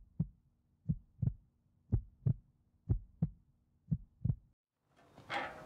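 Heartbeat sound effect: pairs of dull lub-dub thumps about once a second over a faint steady hum, cutting off suddenly about four and a half seconds in.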